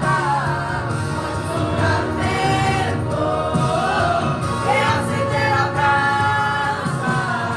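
Youth choir singing a Brazilian gospel song, several voices together on sustained, gliding notes.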